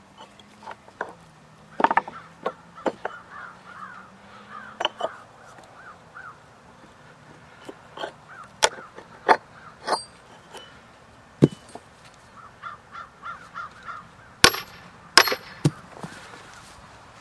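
Sharp knocks and cracks of split green maple blocks being worked and pulled apart by hand, the loudest two near the end. A bird calls in quick runs of short repeated notes behind them, twice.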